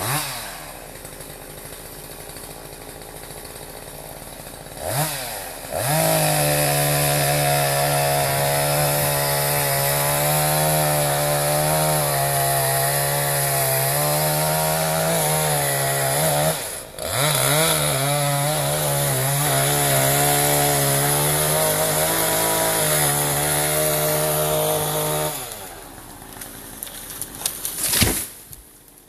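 Chainsaw felling a birch: it idles, is revved up and cuts at full throttle for about twenty seconds with a brief dip in revs partway through, then drops back to idle. Near the end a short loud crash comes as the tree comes down.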